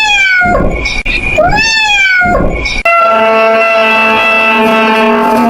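Domestic cat meowing twice, each call rising and then falling in pitch. About three seconds in, the meows give way to a steady held musical note.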